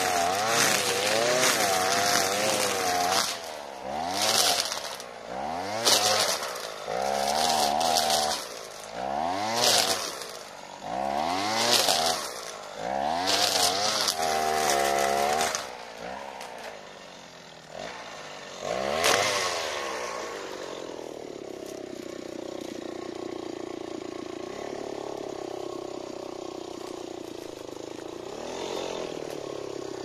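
Alpina Star 55DP petrol brushcutter's two-stroke engine revving up and down about every two seconds as its 3 mm nylon line swishes through grass. About sixteen seconds in it drops to idle, revs once more briefly, then idles steadily.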